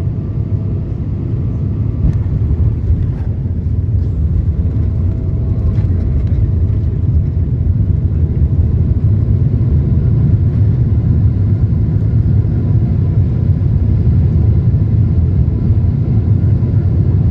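A Boeing 777-300ER heard from inside the cabin as it rolls out on the runway after landing: a loud, steady low rumble from the engines and the wheels on the runway. The rumble grows a little louder after about two seconds, with a few faint knocks in the first six seconds.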